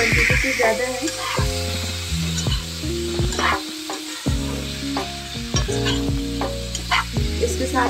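A slotted steel spatula scraping and knocking irregularly against a kadhai as potato, cauliflower and tomato pieces are stirred, the vegetables sizzling in the hot oil.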